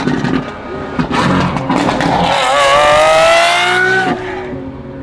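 Lamborghini Aventador SVJ V12 through a Gintani F1 exhaust: sharp pops and bangs in the first two seconds, then a rising rev that cuts off abruptly about four seconds in.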